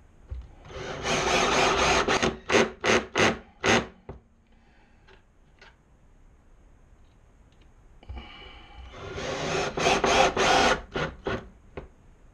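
Cordless drill with a pilot countersink bit boring two holes into wood: each time the motor runs under load for a second or two, then stops and starts in a few short trigger blips. The first hole starts about a second in and the second about eight seconds in.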